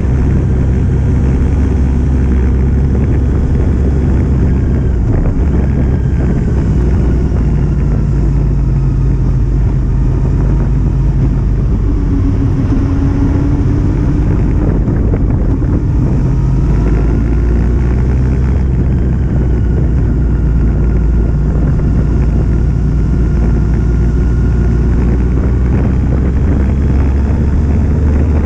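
Kawasaki Z750's inline-four engine running on the move, its pitch slowly rising and falling with the throttle, under a loud, steady wind rumble on the microphone.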